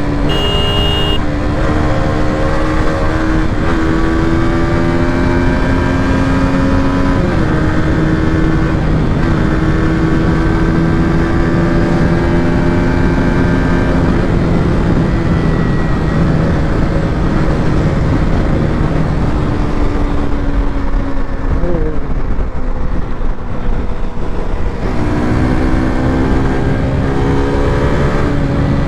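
KTM RC200's single-cylinder engine running under way, its pitch holding steady and then falling and rising with throttle and gear changes, over heavy rushing noise. A brief high tone sounds near the start.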